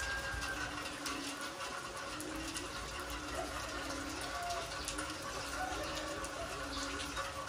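Steady rain falling on a wet concrete yard, with a low call repeating about once a second in the background.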